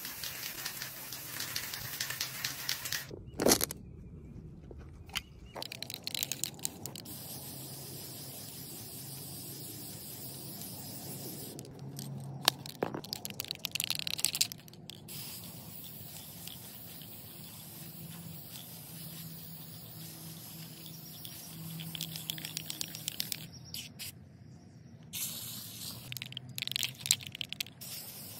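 Aerosol spray paint cans hissing in repeated bursts, with pauses between them. There are also a couple of sharp knocks, the loudest sounds.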